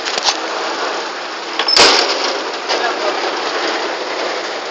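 Steady noise inside a bus, with a few small clicks at the start and one sharp, loud knock a little under two seconds in, typical of a phone being handled.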